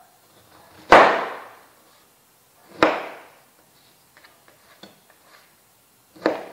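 A knife chopping a firm guava into small pieces on a cutting board: three sharp chops, about a second, two seconds and three seconds apart, with a few faint small taps between the last two.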